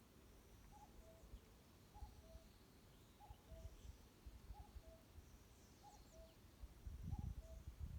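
A forest bird repeating a low two-note call, a higher note falling to a lower one, about once a second, six times, with faint high chirps from other birds. A low rumble rises near the end.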